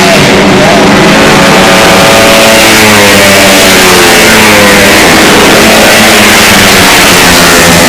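A 130 cc automatic scooter engine running loud close to the microphone, revving so that its pitch drops and then climbs again over a few seconds.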